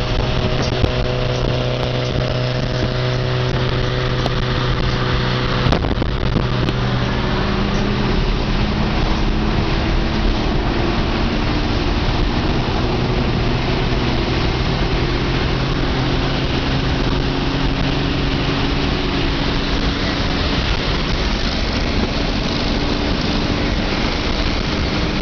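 Car engine pulling hard at high revs at highway speed, heard from inside the cabin under a heavy rush of wind and road noise. The engine note climbs slowly through the second half as the revs rise toward about 6,000 rpm.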